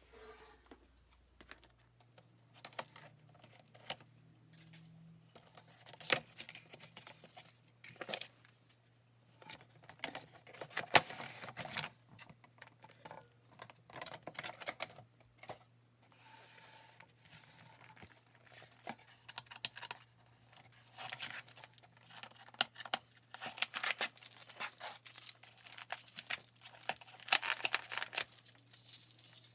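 Cardboard doll box and its plastic packaging being opened by hand: irregular rustling, crinkling, tearing and clicking handling noises, loudest about a third of the way in and through the last several seconds.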